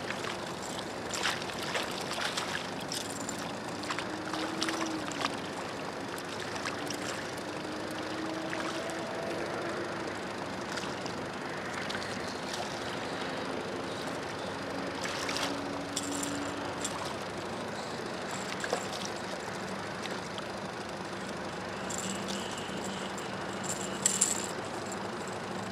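A hooked fish splashing at the water's surface as it is reeled in beside an aluminium boat, then a short burst of knocks and rattles about 24 seconds in as it is swung aboard. A faint low wavering hum runs underneath for much of the time.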